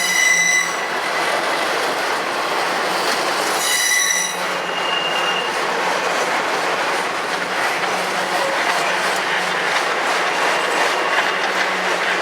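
CSX freight train rolling through a crossover with a steady noise of wheels on rail and clicks over the joints. High-pitched steel wheel flange squeals come right at the start and again about four seconds in.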